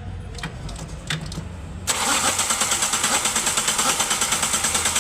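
A few faint clicks, then about two seconds in the starter motor of a Toyota Etios common-rail diesel engine cranks it with an even pulsing of about six beats a second, without the engine catching. It will not start because rail pressure cannot build: fuel is leaking back heavily through an injector's return line.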